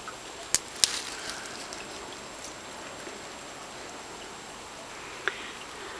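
Steady light rain falling, with a few sharp ticks over it: two close together a little after half a second in and one near the end.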